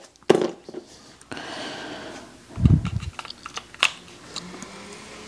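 Light plastic clicks and taps as a power adapter's small prong plug is handled and set into a molded box tray, with a brief scraping rustle and a dull thump about midway.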